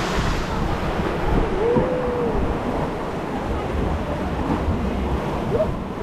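Water rushing around a river rapids ride raft, with wind buffeting the microphone; a short vocal sound about two seconds in.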